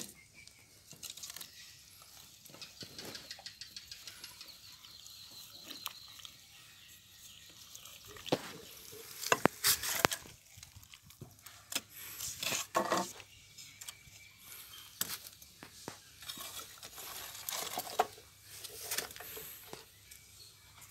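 Two wooden sticks stirring and mashing thick ragi (finger millet) kali in an aluminium pot, with irregular knocks and scrapes of wood against the pot.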